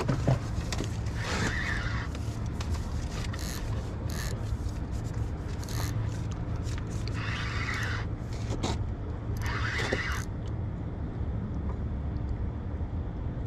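Spinning reel being cranked in a few short spells while a hooked fish is played in toward the net, over a steady low hum.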